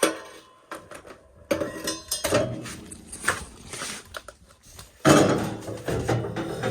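Metal clattering and scraping as a cleaned part is slid back into an old Peerless gas-fired boiler. About five seconds in, music comes in suddenly.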